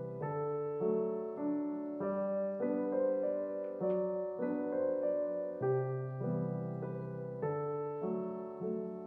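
Solo piano background music: a gentle tune of held notes and chords that change every half second to a second.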